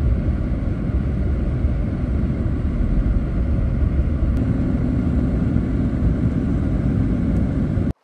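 Truck driving along a snow-covered road, heard from inside the cab: a steady low rumble of engine and tyres that cuts off suddenly near the end.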